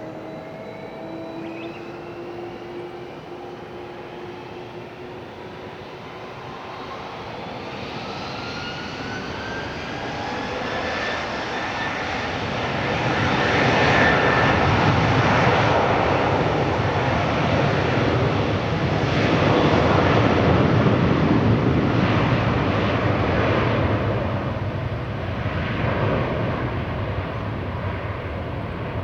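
Boeing 767-300ER's twin jet engines spooling up for takeoff with a rising whine, then a loud jet roar as the airliner runs down the runway. The roar is loudest about halfway through and eases somewhat near the end.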